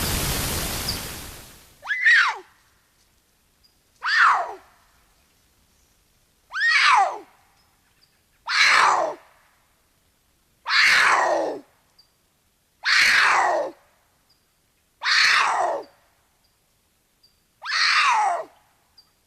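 Reconstructed sabertooth cat (Smilodon fatalis) calls: eight harsh cries about two seconds apart, each falling steeply in pitch and lasting under a second. A burst of hiss fades out before the first call.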